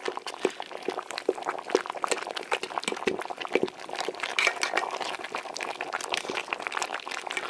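A metal spoon mashing boiled white yam in a pot of hot cooking water, with irregular sharp taps and scrapes against the metal pot over wet, bubbling liquid.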